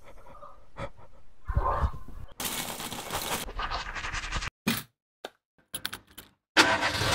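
A jumble of edited sound effects: scattered sharp cracks, a harsh burst of noise lasting about a second, and abrupt cut-outs to silence, ending in a loud hit.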